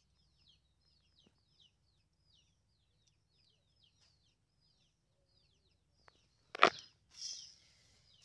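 A small bird chirping over and over, short high falling chirps about three a second. About six and a half seconds in a sudden loud knock, followed by a brief rustle.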